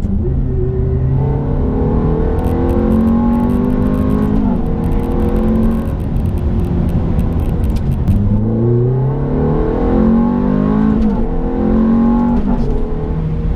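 Ferrari F430's V8 engine pulling under acceleration: the revs climb, drop sharply at each quick upshift of the automated single-clutch gearbox, and climb again, several times over.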